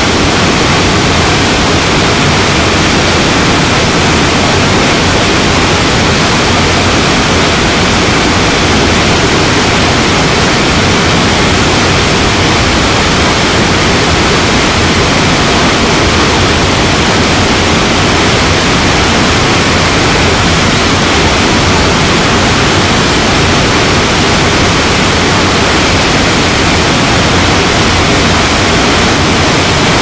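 Large waterfall in spate, a heavy flow of muddy water pouring over boulders: a loud, steady rush of falling water.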